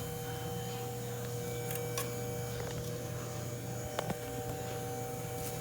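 Steady electrical hum with a few faint clicks, about two and four seconds in, from a new electric power steering column assembly being turned by hand. No rubbing noise comes from the column.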